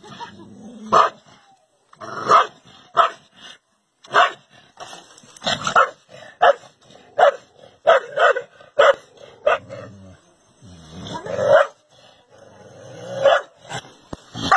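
A dog barking in short, sharp barks, about one every half second at its busiest, with two longer drawn-out barks near the end.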